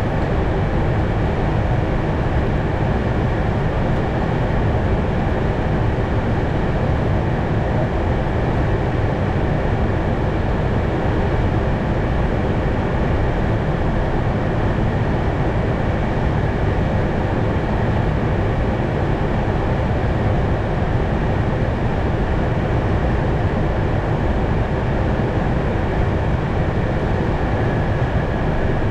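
Steady flight-deck noise of an Airbus A220 in flight: a constant rush of airflow with a low hum, unchanging throughout.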